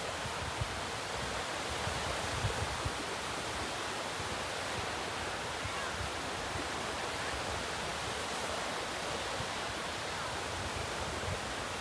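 Steady hiss of small waves washing onto a sandy beach, with a few soft low thumps in the first three seconds.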